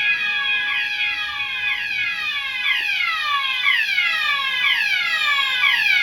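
Fire alarm sounder going off in drill mode: a rapid run of overlapping falling electronic sweeps over steady high tones.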